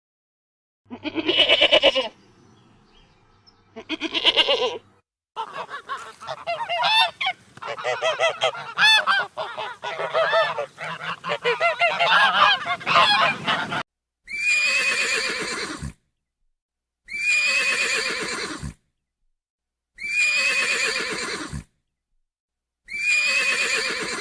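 Two separate bleats, then geese honking over one another for about eight seconds, then four long separate animal calls about three seconds apart, each falling in pitch.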